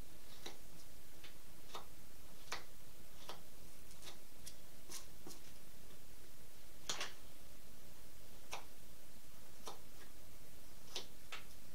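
Small carving knife making short slicing cuts into the pine bill of a wooden duck decoy: about fifteen crisp, irregularly spaced ticks, roughly one or two a second, the strongest about seven seconds in, over a steady low background hiss.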